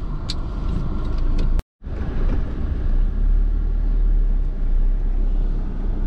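Car driving, heard from inside the cabin: a steady low rumble of engine and tyres on the road. The sound cuts out completely for a moment about a second and a half in.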